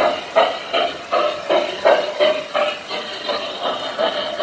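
Lionel O-gauge New York Central Commodore Vanderbilt Hudson steam locomotive running with its sound system chuffing, about three even chuffs a second over a steady hum.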